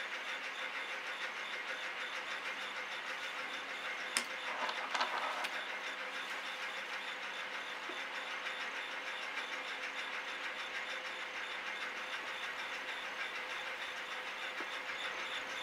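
Steady mechanical hum and hiss, with a sharp click about four seconds in followed by a brief rustle.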